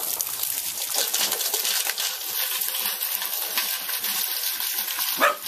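Running water pouring and splashing into a dog's water bucket: a steady hiss with fine crackle.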